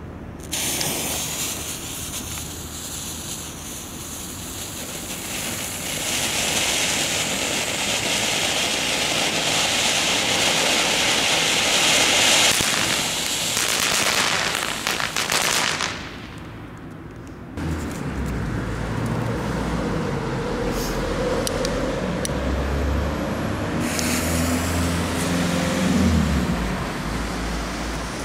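A small ground firework fountain spraying sparks with a steady, strong hiss for about fifteen seconds, then dying out. After a short lull a lower, steadier rumble with a faint drone takes over.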